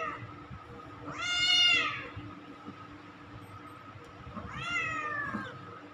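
Wet blue British Shorthair cat meowing while being towel-dried: two drawn-out meows about a second each, the second softer, after the tail end of another as it begins.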